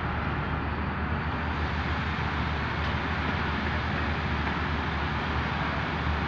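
Mobile crane's diesel engine running steadily as it holds and moves a suspended load: a constant low hum under an even wash of noise.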